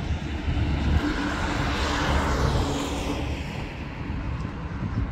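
A vehicle passing, its noise swelling to a peak about two seconds in and then fading, over a steady low rumble.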